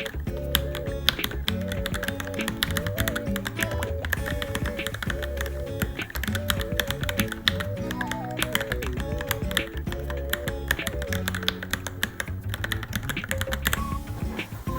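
Fast typing on a Varmilo Minilo mechanical keyboard, a dense run of key clicks, over background music; the typing stops near the end.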